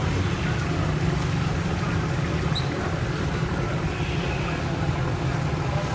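Chapli kababs frying in a wide pan of hot oil, a steady sizzle, over a steady low rumble.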